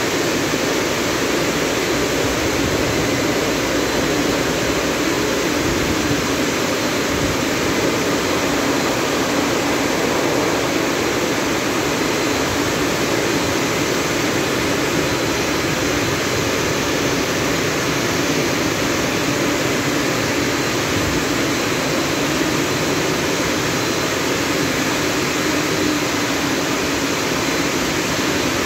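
Drying blowers of a Christ rollover car wash running steadily, a loud, even rush of air blowing down over a car as the gantry moves along it in the drying stage.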